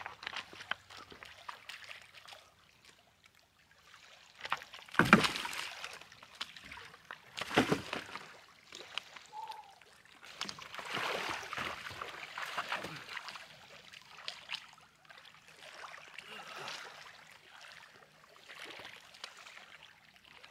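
Lake water lapping and splashing against the shore in irregular washes, the loudest about five and about seven and a half seconds in, with a longer wash a little later.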